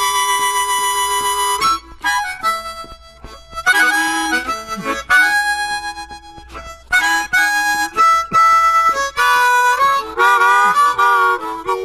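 Blues harmonica solo between sung verses: phrases of held, bent notes with short breaks between them.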